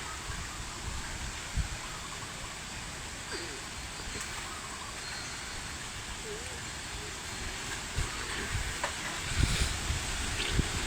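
Strong wind blowing and buffeting the microphone: a steady rushing hiss with irregular low rumbling gusts, heavier near the end.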